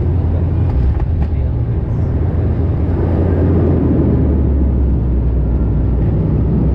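Cabin noise inside a De Havilland Canada Dash 8 Q400: its Pratt & Whitney PW150A turboprop engines and propellers drone steadily. The low drone shifts lower about four seconds in.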